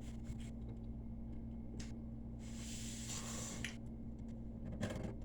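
Small clicks and handling noises from a meal being eaten at the table, with a rustling hiss lasting about a second, a little over halfway through, all over a steady low hum.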